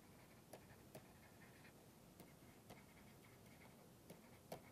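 Near silence with a few faint, short clicks of a stylus tapping and stroking on a writing tablet as words are handwritten.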